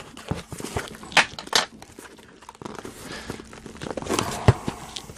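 Packing paper crinkling and tearing as a wrapped item is pulled out of a cardboard shipping box, in irregular rustles and sharp crackles, the loudest one near the end.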